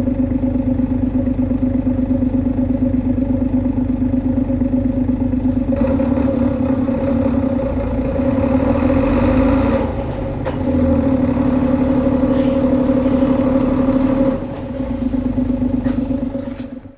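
Hino Blue Ribbon HU2ML bus under way, its engine and drivetrain giving a steady droning whine at two pitches: the unusual noise of this low-floor prototype, which the uploader puts down to its rearranged engine layout. The sound drops briefly about ten seconds in and again near fourteen seconds, then fades out at the end.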